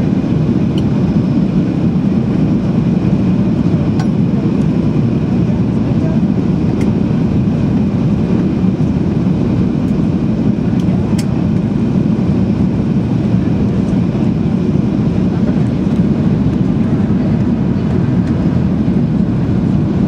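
Steady cabin drone of a Boeing 737-800 with its CFM56 engines running, heard from inside the passenger cabin: an even, low rush of engine and airflow noise with a few faint ticks.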